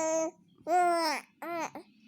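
Baby's high-pitched babbling vocalizations: a drawn-out sound ending just after the start, another about half a second long, then two short rising-and-falling sounds near the end.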